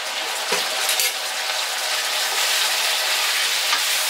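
Chicken sizzling in a cooking pan, a steady hiss of frying, with a couple of sharp metal clinks from stirring in the first second.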